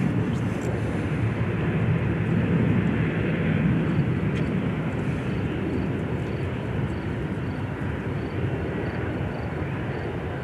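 Antonov An-124's four D-18T turbofan engines running at power on the runway before take-off: a deep, steady rumble with a jet hiss, growing louder over the first few seconds and then easing slightly.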